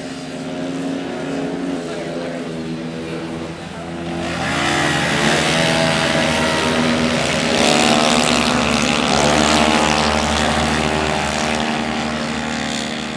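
Several 125 cc four-stroke racing motorcycles running hard on the track, their engine notes overlapping and rising and falling in pitch. It gets louder about four seconds in as a bike comes through a corner close by, and its pitch drops and climbs again near the middle.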